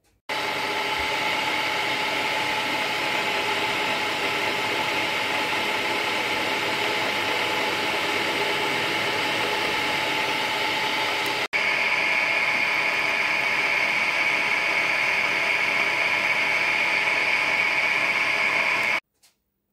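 Small milling machine running steadily with a whine, its spindle drilling and end-milling the brass cylinder block of a model steam engine. It starts and stops abruptly, and about halfway through the tone shifts, higher and slightly louder.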